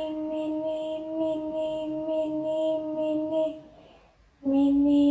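A high voice chanting "mini, mini, mini" rapidly on one held pitch, about three syllables a second. It breaks off at about three and a half seconds, and a second run starts at a slightly lower pitch about a second later.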